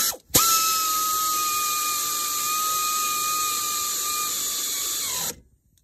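Pneumatic air ratchet on compressed air driving a fastener: a short blip, then about five seconds of steady hissing exhaust air with a whine that sags slightly under load, cutting off suddenly near the end.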